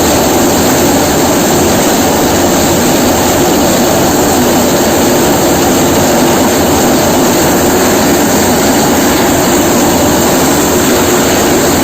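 Solam cutting machine running: a loud, steady mechanical drone that never lets up.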